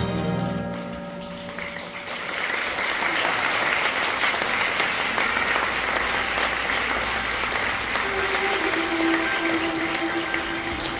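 Theatre audience applauding: the clapping swells about a second and a half in as the previous music cue ends, then holds steady. A new, soft music cue with sustained tones comes in under the applause about eight seconds in.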